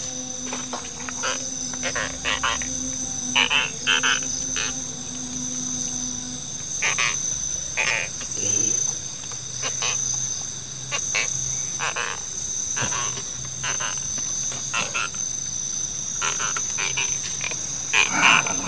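Frogs calling in short, repeated croaks over a steady, high-pitched drone of insects.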